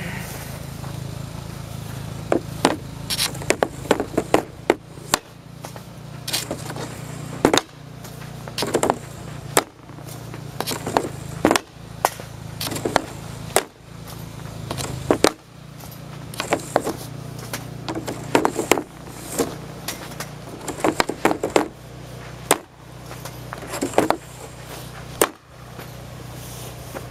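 Ice hockey shots: a composite Easton Stealth RS stick slapping the ice and cracking into pucks, one sharp crack after another every second or so, often in quick pairs, with pucks scraping across the ice. A steady low hum runs underneath.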